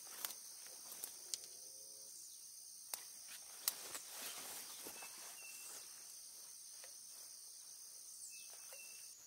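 Steady, high-pitched chorus of insects, with scattered faint clicks and rustles in the grass. Two brief high chirps sound, one near the middle and one near the end.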